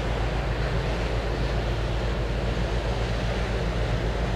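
Steady low rumble under an even wash of wind noise.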